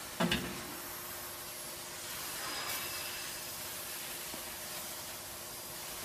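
Shredded paper being gathered up and stuffed into a vertical baler, giving a steady hiss-like rustle over a faint hum. One sharp thump comes about a quarter-second in.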